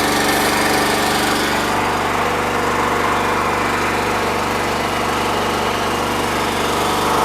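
Towable backhoe's small engine running steadily; the higher part of the sound drops back a little about two seconds in.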